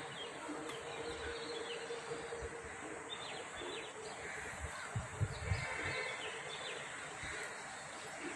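Faint, scattered chirps of small birds over a steady outdoor background hiss, with a few low bumps about five seconds in.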